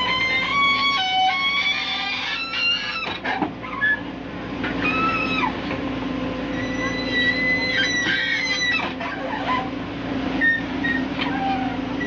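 JCB JS140 tracked excavator's diesel engine running steadily under work, with high-pitched metal squeals that hold and glide in pitch, and a couple of sharp knocks about three seconds in.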